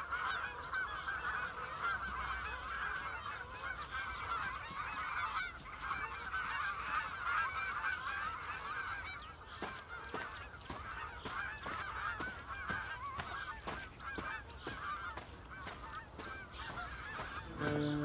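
A flock of white domestic geese honking and cackling continuously, many short calls overlapping. The honking dies away a few seconds before the end, as music comes in.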